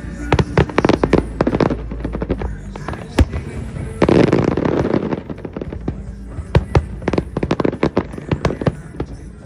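Fireworks going off in rapid volleys of sharp bangs and crackles, with a denser burst about four seconds in, over music playing in the background.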